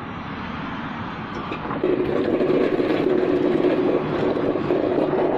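A motor vehicle's engine running close by, a steady drone that grows louder about two seconds in and holds.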